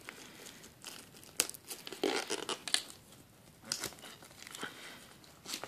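Plastic shrink-wrap being picked at, torn and peeled off a steelbook Blu-ray case: irregular crinkling and crackling with sharp snaps, in clusters about one and a half, two to three and four seconds in.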